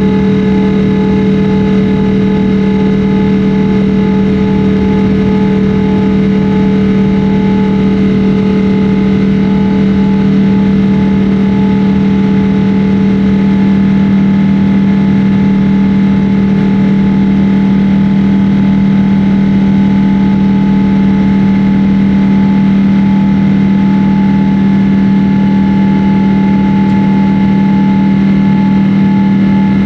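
Jet airliner's engines droning steadily, heard inside the passenger cabin: a strong, even low hum with fainter steady tones over a rushing background, unchanging throughout.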